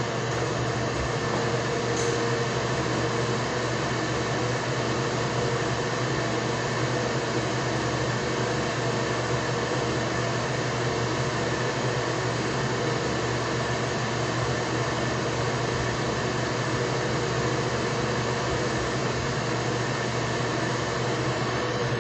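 A steady droning, rushing mechanical noise with a low hum, unchanging throughout.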